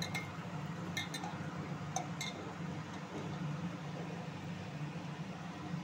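Stainless-steel bowl clinking lightly, about four times in the first two and a half seconds, as fish pieces are mixed by hand with oil and spice paste. A steady low hum runs underneath.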